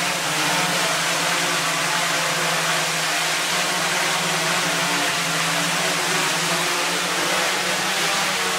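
Steady whir of a large multirotor drone's electric motors and propellers, an even rushing noise with a constant low hum under it.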